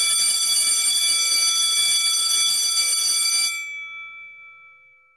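Electric school bell ringing continuously, signalling the end of class; about three and a half seconds in it cuts off and its tones die away over a second or so.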